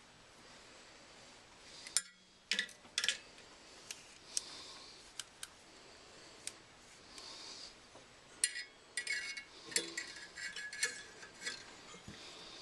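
Small metal parts of the furnace's pilot and thermocouple assembly being handled: scattered sharp clicks and ticks, with a run of quick light rattles in the second half.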